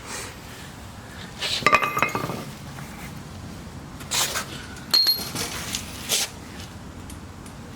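Metal parts and tools clinking as they are handled during a control arm swap: a ringing metallic knock about two seconds in, then a few more clinks, one with a high ring.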